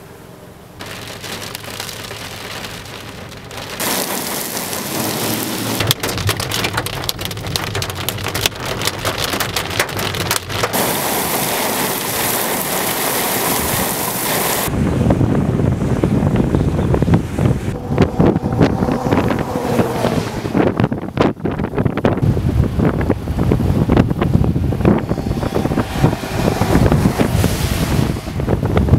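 Heavy rain pelting down, with many sharp drop impacts, growing heavier part way through. About halfway through, strong gusting wind buffets the microphone with a deep, uneven rumble.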